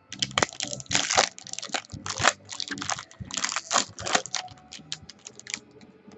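Irregular rustling, crinkling and tearing of trading-card packaging being handled and opened by hand, with short clicks between the louder rips.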